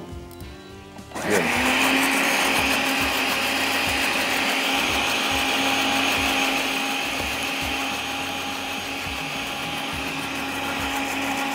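Electric blender grinding a wet green chutney of coriander, mint and green chillies into a fine paste. The motor starts about a second in and then runs steadily with an even whir.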